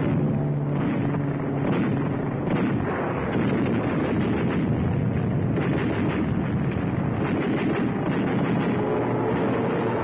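Explosions and gunfire in quick succession over a continuous rumble, the sound of a bombing attack, on an old, narrow-band film soundtrack.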